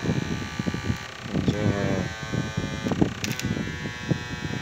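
Homemade 12 V electrofishing inverter running on its first setting, loaded with a 1000 W test bulb. It gives a steady electrical buzz with many high overtones, broken by irregular clicks.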